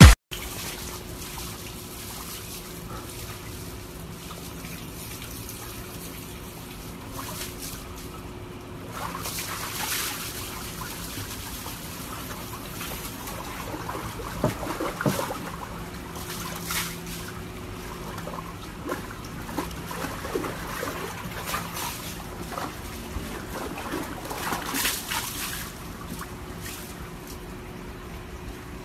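Water sloshing and splashing in a plastic tub as a husky shifts about in it, with a few louder splashes in the middle and near the end, over a faint steady hum.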